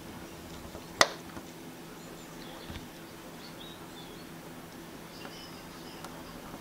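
An automatic centre punch firing once against the steel wing panel with a single sharp click about a second in, popping a mark for a drill hole through a paper template.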